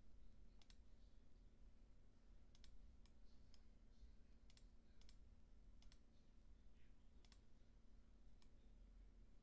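Near silence with faint, irregular computer mouse clicks, about six over the stretch.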